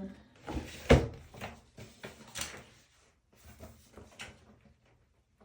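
Objects being handled and set down while a box is unpacked: a sharp knock about a second in, then lighter clunks and rustles that die away near the end.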